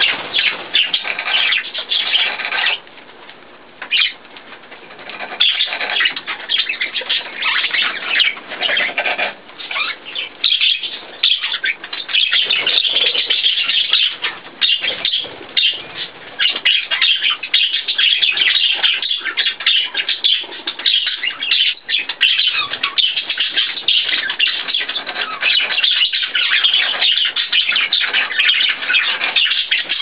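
Budgerigars chattering and chirping in a dense, continuous warble. There is a short lull about three seconds in.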